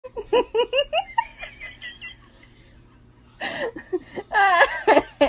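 A person laughing in a quick run of short bursts, then after a short lull breaking into louder, higher laughter with wavering pitch.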